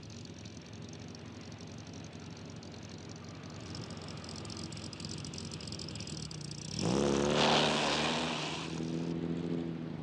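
Open sports car's engine running steadily as it drives, revving up sharply about seven seconds in, which is the loudest part, then settling back to a steady drone.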